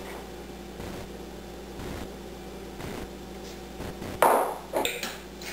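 A spice jar clinking against a glass mixing bowl as basil is knocked out of it: three sharp, ringing clinks in quick succession about four seconds in.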